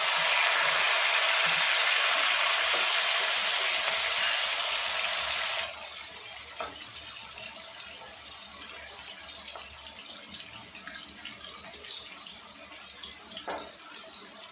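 Sliced onions sizzling in hot oil with cumin seeds in an aluminium kadhai: a loud, steady hiss that drops suddenly about six seconds in to a quieter frying sizzle. A few light clicks of a steel ladle stirring the onions come through later.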